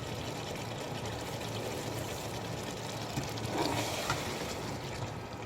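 Chicken karahi simmering in its oil and tomato gravy in the pot, a steady bubbling hiss that swells briefly a little over halfway through.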